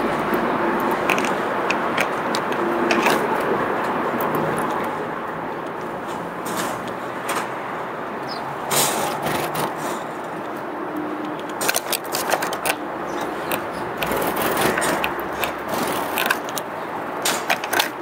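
Steady background noise, with many short sharp clicks and taps scattered through it, most of them in the second half.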